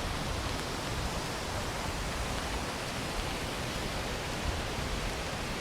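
Steady rushing noise of strong wind and rain, with wind buffeting the microphone in uneven low rumbles.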